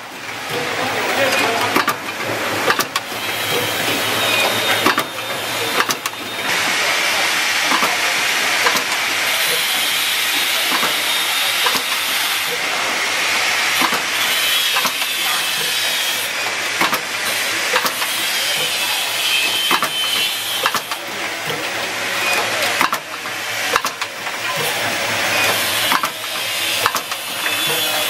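Automatic switch assembly machine running: a steady hiss of compressed air, heaviest through the middle, with frequent short clicks and knocks from its moving parts.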